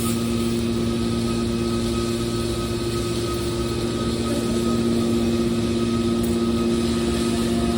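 Hydraulic scrap steel baler running: a steady machine hum with a constant whine over it.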